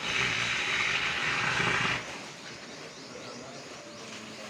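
A harsh, rasping sound from a sacrificial animal whose throat has just been cut. It lasts about two seconds, then drops away to quieter background noise.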